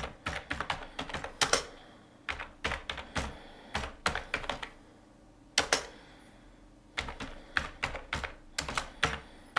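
Typing on a computer keyboard: runs of quick key clicks in bursts, broken by two short pauses midway.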